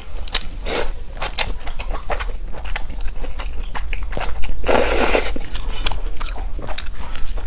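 Close-miked eating: a person biting and chewing food, with many small wet clicks and crunches, and one louder, longer noisy burst about five seconds in.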